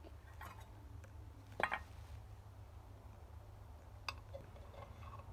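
A few sharp clinks and knocks of a spoon against steel dishes and a wooden mortar, the loudest about one and a half seconds in with a short metallic ring, over a low steady hum.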